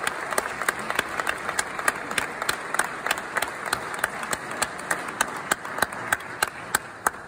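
Audience applauding, with one person's claps close by standing out sharp and even, about three a second, over the rest; the applause begins to die down near the end.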